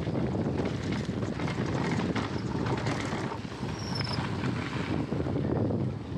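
Mountain bike rolling fast down a dirt trail: wind rushing over the bike-mounted camera's microphone, mixed with tyre noise on the dirt and the bike rattling and clicking over bumps.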